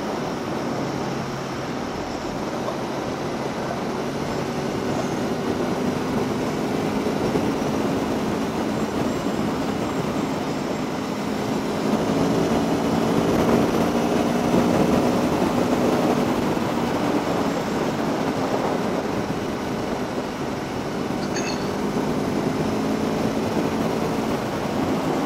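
Aprilia Tuono V4 1100 motorcycle under way at road speed: a steady rush of wind with the V4 engine running underneath, its pitch sliding up and down with the throttle, a little louder around the middle.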